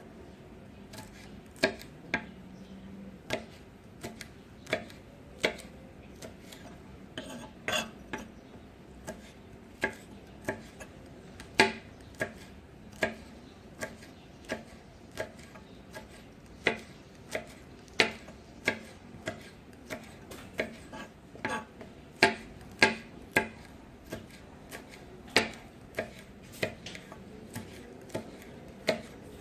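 Kitchen knife slicing green beans on a chopping board: a long run of sharp knife taps on the board at an unhurried, uneven pace, roughly one every half second to a second.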